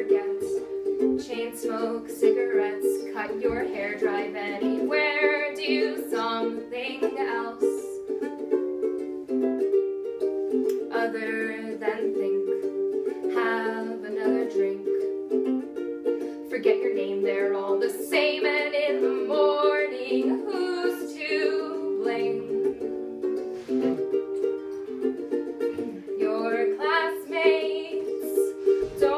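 Live acoustic music: a strummed string instrument plays steady chords, and a voice sings over it at times.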